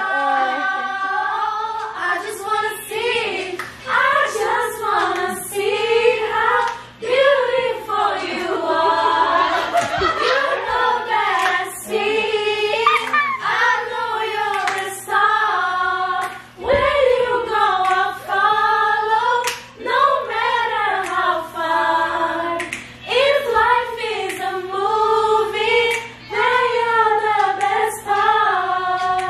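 A group of women singing a song together a cappella, in long sliding melodic lines, with a few sharp clicks over the singing.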